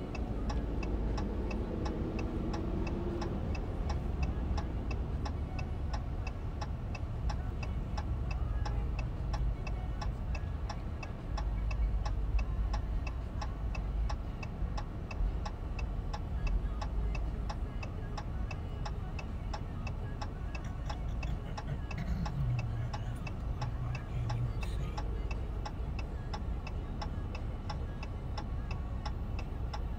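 A car's turn-signal indicator ticking steadily and evenly in the cabin, over a low rumble of the idling car and passing traffic.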